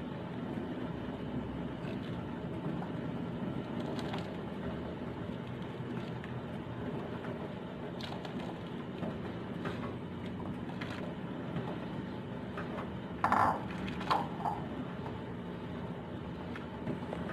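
Steady rush of a gas stove burner under a simmering pot of soup, with scattered light clinks and scrapes of a metal ladle against the bowl and the stainless steel pot, the loudest cluster of knocks about 13 to 14 seconds in.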